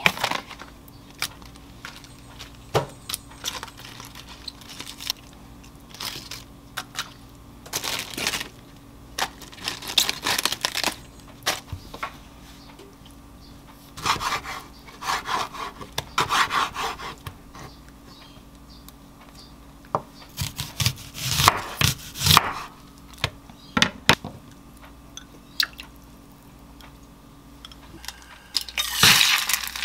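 Kitchen food-prep sounds: a knife slicing a tomato against a wooden cutting board and a plastic salad spinner being handled, heard as scattered knocks, taps and rustles. Near the end, fat starts sizzling in a small frying pan.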